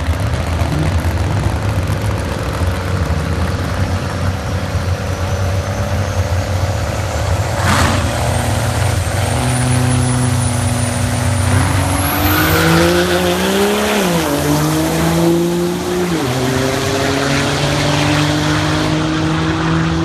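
Diesel Dodge pickup launching in a drag race: the engine is held loaded on the line under a high whistle that climbs in pitch, then it accelerates hard down the track. Its pitch climbs and drops back at each gear shift, about three times.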